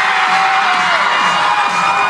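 Crowd of children cheering and screaming over background music, with one long held shout in the first second.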